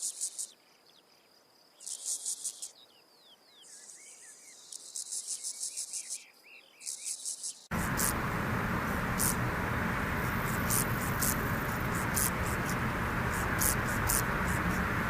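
Grasshopper stridulation: bursts of high, dry buzzing, each about a second long with pauses between, and faint bird chirps behind. About eight seconds in it changes abruptly to a louder recording: a steady hiss with short, sharp insect clicks scattered over it.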